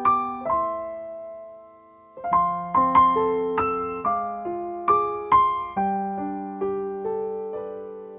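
Slow, gentle solo piano music: single notes and small chords are struck and left to ring and fade. After the first two notes there is a pause of about a second and a half, then a steady run of notes.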